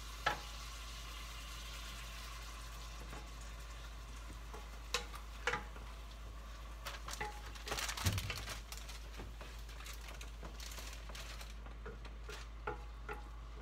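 Ground beef sizzling as it browns in a frying pan on the stove, with a spatula scraping and tapping against the pan now and then and a louder clatter about eight seconds in.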